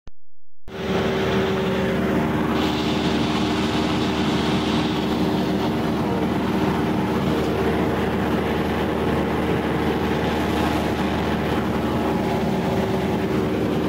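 Steady drone of a light propeller plane's engine and propeller heard from inside the cabin in flight, with a hum of several steady low tones under a rush of noise. It begins a moment in and holds unchanged.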